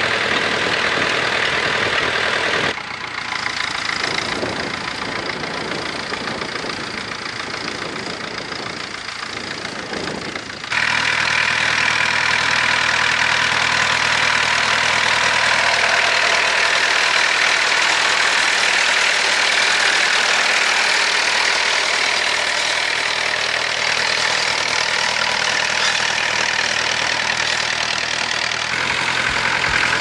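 McCormick International B275 tractor's four-cylinder diesel running steadily under load while ploughing. About 3 s in the sound drops abruptly to a quieter, rougher engine sound. About 11 s in it comes back suddenly, louder and steady.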